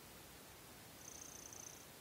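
Faint purring of a white long-haired kitten resting, with a soft high hiss that swells for under a second about a second in.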